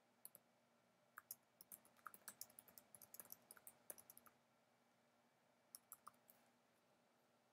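Faint typing on a computer keyboard: a quick run of keystrokes from about a second in to about four seconds, then a few more keystrokes around six seconds.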